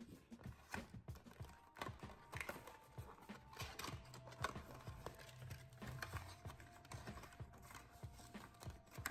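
Small cardboard box being handled and its flap opened: a run of light, irregular clicks and taps of cardboard.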